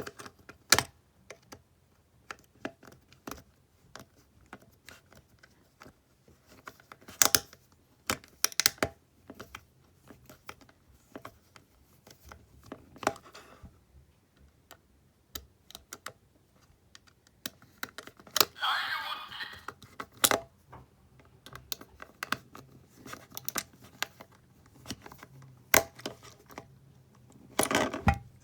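Irregular clicks and taps of small hard plastic parts being handled, with a few short rustling or scraping stretches, loudest about a second into the last third and near the end.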